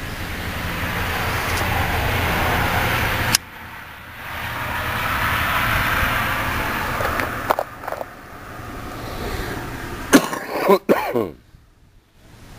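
Steady rushing engine noise with a low rumble, swelling and fading, that cuts off abruptly about three and a half seconds in and builds again. Near the end come a few sharp clicks and falling sweeps, then a brief drop to near silence.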